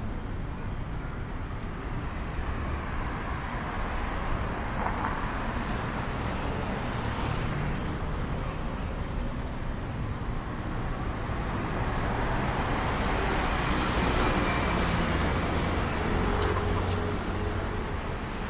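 Street traffic: a steady road noise with vehicles passing, swelling louder about seven seconds in and again for a few seconds past the middle.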